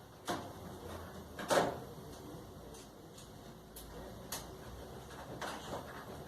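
Two sharp knocks about a second apart, the second the louder, then a few lighter clicks over a faint low hum.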